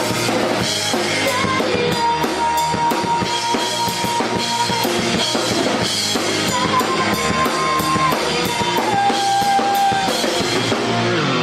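Pop-rock band playing live: a full drum kit with cymbal and snare hits drives the song, and a held high note steps down in pitch partway through. A low falling slide comes right at the end as the song closes.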